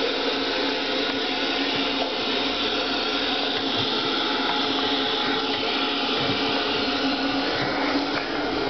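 Steady hiss of static from a CRT television showing snow, an even rushing noise with no changes.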